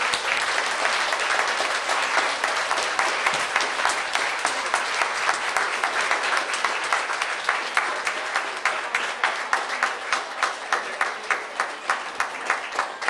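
An audience applauding: dense clapping from many hands that settles, about halfway through, into rhythmic clapping in unison at about three claps a second.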